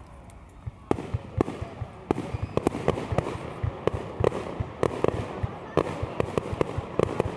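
Fireworks going off: a rapid, irregular string of bangs and crackling pops, sparse at first and growing dense about a second in.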